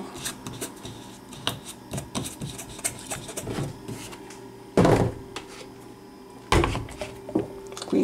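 Plastic containers and caps handled on a countertop: scattered light clicks and knocks, with two heavy thumps, one about five seconds in and one about a second and a half later.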